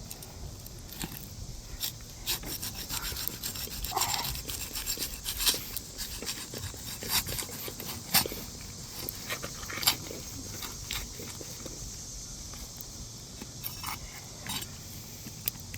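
Asphalt shingles being worked loose on a roof: irregular scraping, crackling and sharp clicks as brittle shingles are pried up and tear.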